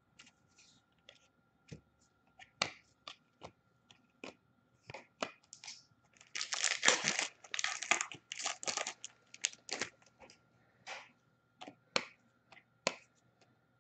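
Hockey trading cards being handled: a string of light clicks and taps as cards are set down and shuffled, with a longer stretch of crinkling and tearing about six to nine seconds in as a card pack's wrapper is torn open.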